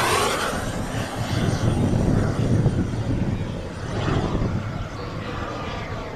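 Turbine of a Skymaster F-100 radio-controlled model jet (JB-130 engine) whining as the jet climbs away after a low pass. A rushing noise and a thin high whine fade steadily.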